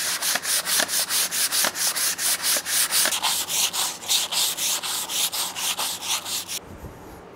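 Hand sanding of a wooden picture frame's edge, in quick even back-and-forth strokes of about four to five a second, smoothing off splinters; the strokes stop near the end.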